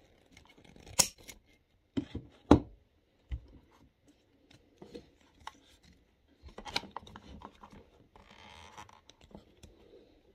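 Crimp pliers working an old ear clamp on the toilet valve's plumbing fitting: sharp metal clicks and snips, a few single ones in the first few seconds and a quick cluster about seven seconds in, then a short scraping rub.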